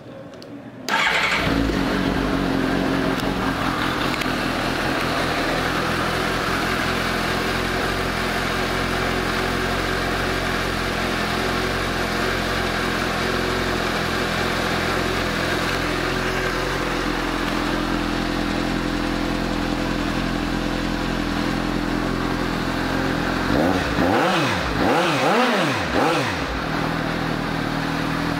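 A 2015 Suzuki GSX-S750's inline-four engine starts about a second in and idles steadily. Near the end the throttle is blipped three times, the revs swooping up and dropping back to idle.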